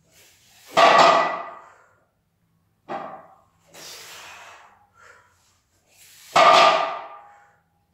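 Loaded barbell with iron plates set down on a wooden lifting platform between deadlift reps, the plates clanging and ringing as they fade, twice. Between the touchdowns there is a lighter knock of the bar about three seconds in and the lifter's heavy breathing.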